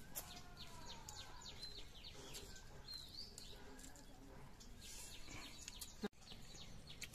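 Faint outdoor ambience with small birds chirping, many short high calls repeating throughout.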